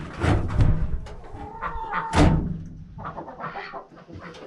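Chickens clucking, with dull handling thumps about half a second in and again about two seconds in.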